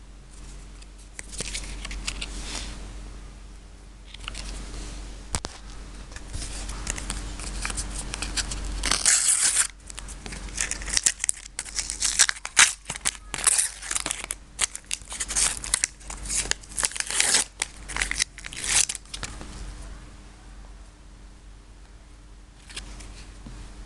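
A sticker packet torn open by hand, with a loud tear about nine seconds in, then a long run of quick crinkling and rustling as the wrapper is handled and the stickers pulled out. Softer shuffling of the stickers near the end.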